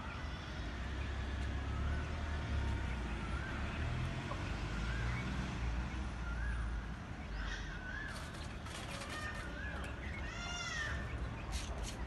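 Aseel chickens calling: short rising-and-falling peeps about once a second, with a louder, higher call about ten seconds in, over a steady low rumble.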